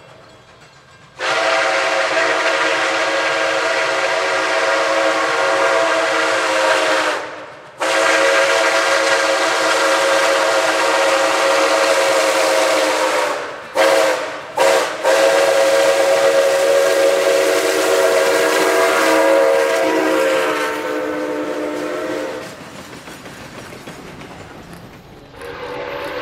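Brass Nathan six-chime steam locomotive whistle blowing a full multi-note chord. It gives two long blasts, a couple of quick short toots, then another long blast that fades away, and sounds again right at the end.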